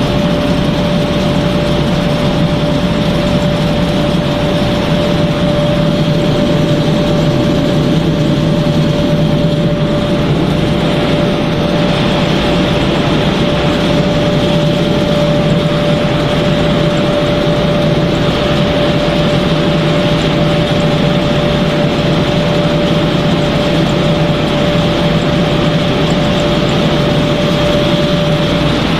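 Steady running noise of snack-pellet production machinery (dryer, conveyors and their electric motors), a constant hum with a steady mid-pitched whine over it.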